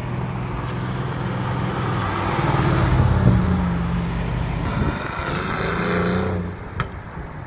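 A sports car's engine and exhaust as it drives past and pulls away. It is loudest about three seconds in, then the revs rise around five seconds in before the sound fades away.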